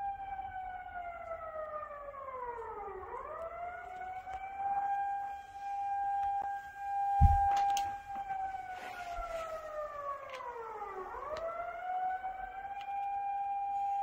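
Outdoor civil-defence warning siren sounding, a high-pitched alarm like a tsunami warning. One tone is held steady while a second slides slowly down and back up, twice. A single sharp thump comes about seven seconds in.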